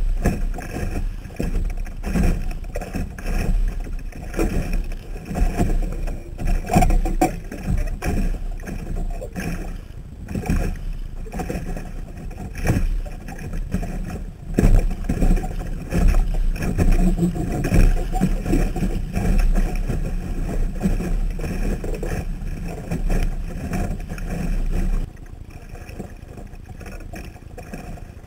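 Water slapping and rushing along the hull of a Sunfish sailboat under way, with irregular splashes. It settles to a quieter, steadier rush about 25 seconds in.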